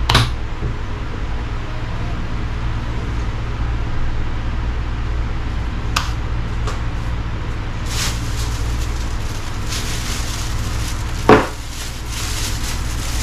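Sharp metallic clicks and knocks of battery cables and terminals being handled while 12 V batteries are wired in parallel, a few scattered strikes with the loudest about eleven seconds in, over a steady low hum.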